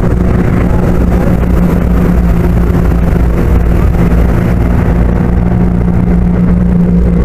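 Yamaha Exciter jet boat's engine running loud and steady while the boat cruises, an even drone under a rushing noise.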